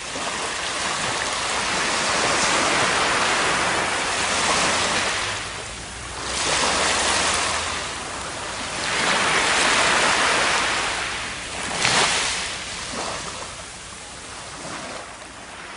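Waves and rushing water swelling and fading every few seconds, with one sharp splash or knock about twelve seconds in.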